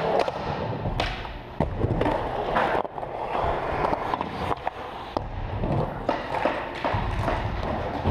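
Skateboard wheels rolling over a skatepark floor and ramps: a steady rolling rumble broken by several sharp clacks and knocks of the boards.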